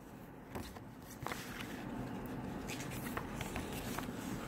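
Pages of a picture book being turned and handled: a few soft paper rustles and light taps, with a low steady hum coming in about a second in.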